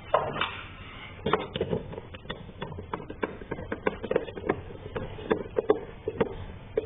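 Irregular light clicks and knocks, a few a second, of car parts being handled during work on the air intake tube.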